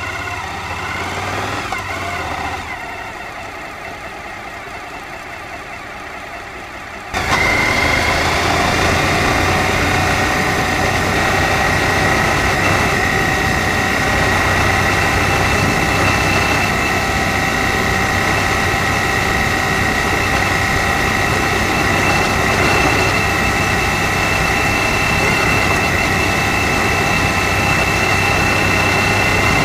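Suzuki V-Strom DL1000's V-twin engine running under way on a gravel track, with wind and road noise. For the first few seconds it is quieter and the engine note rises and falls; about seven seconds in the sound jumps suddenly louder and then holds steady, with a high steady tone.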